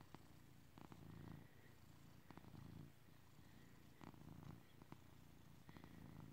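A domestic cat purring faintly while its head is stroked, the purr swelling and fading with each breath in and out.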